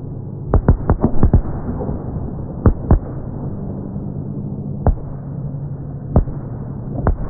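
Fireworks shells bursting as deep, muffled booms: a quick run of bangs about a second in, a pair near the three-second mark, then single booms spaced a second or more apart, over a steady low rumble.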